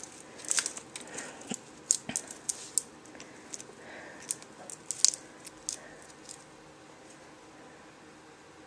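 Timneh African grey parrot feeding at its cups: irregular sharp beak clicks and small crunches. They stop about six seconds in.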